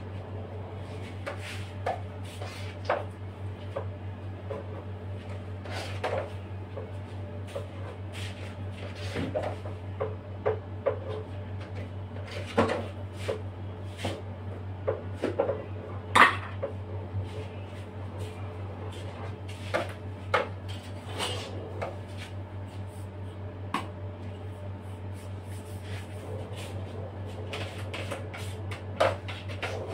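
Irregular knocks, taps and clinks of cake-decorating tools, tubs and bottles being handled on a worktop and cake turntable, the sharpest one about halfway through, over a steady low hum.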